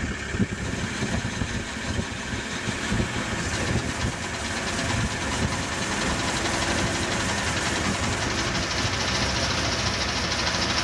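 Triumph sprint bike's engine being spun over on a roller starter without firing, turned to get oil round the engine; there is no spark, so it does not start. A steady mechanical run that grows a little louder about halfway through.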